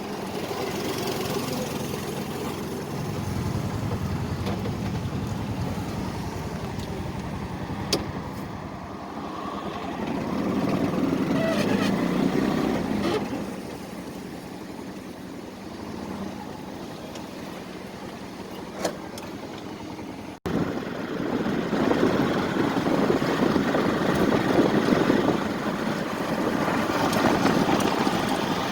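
Street traffic: motor vehicle engines running and idling, with a few sharp clicks and a sudden break about two-thirds of the way through, after which it is louder.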